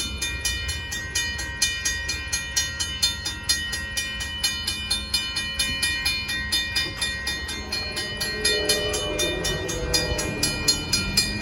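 Amtrak Texas Eagle passenger train rolling by, its wheels clattering in a fast, even run of clicks, with a steady high-pitched ringing tone over it.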